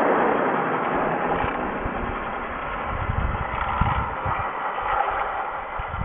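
Vintage 1960s electric lawn edger running, its motor giving a steady whirring hum while the spinning blade cuts the grass along the sidewalk edge. Irregular low thumps come through near the middle.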